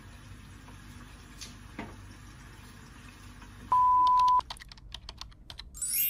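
Faint hiss from a covered frying pan on the stove, then editing sound effects at a scene transition: a loud steady beep lasting under a second a little past halfway, a quick run of sharp clicks like typing, and a bright high ringing chime at the end.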